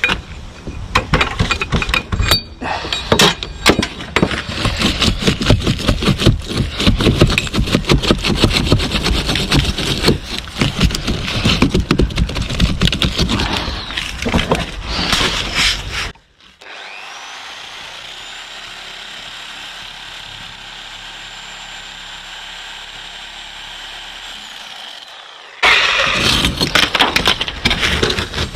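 Sabre saw (reciprocating saw) cutting through soft mortar beds between bricks, a fast rasping buzz of rapid strokes. About sixteen seconds in it drops to a quieter steady hum with a faint high whine for some nine seconds, then the saw cuts again near the end.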